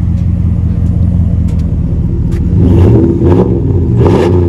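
A 2019 Ram 1500's 5.7-litre Hemi V8 running loud through a 3-inch dual exhaust with a Flowmaster 40 Series muffler in place of the stock muffler and resonator. It idles steadily, then is revved twice in quick succession about halfway in.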